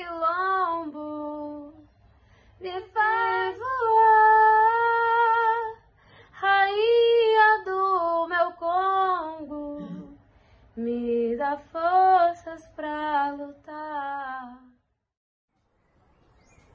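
A solo female voice singing without accompaniment, in short phrases with pauses between them. It stops a couple of seconds before the end.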